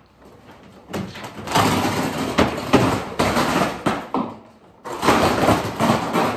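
A heavy old wooden door being shifted by hand, scraping and knocking against the floor in two long stretches, the second starting about five seconds in.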